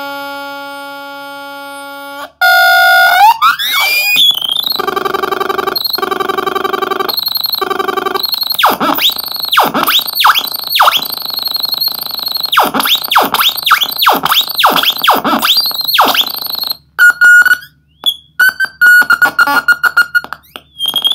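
Homemade oscillator-based noise synthesizer being played by hand: a steady held tone fades and cuts off about two seconds in, then a rising glide gives way to fast pulsing tones. After that come repeated swooping pitch dives, and near the end choppy, stuttering bursts broken by short gaps.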